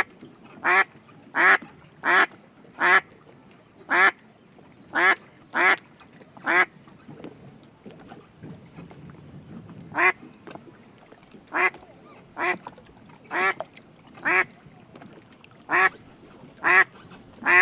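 A duck quacking: short, loud quacks in a regular series, a pause of a few seconds about halfway, then another series of quacks.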